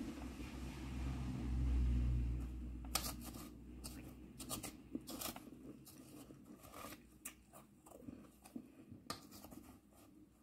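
A metal spoon scraping and crunching through soft shaved ice in a plastic bowl, as a run of sharp scrapes and crunches from about three seconds in. Before that there is a low muffled rumble, the loudest sound of the stretch.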